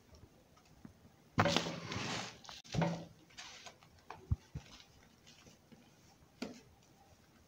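A molded dome of baking soda broken apart and crumbled by hand. A loud, gritty crunch comes about a second and a half in, and a shorter one follows just after. Softer crumbling comes next, with a small knock and one more light crunch near the end.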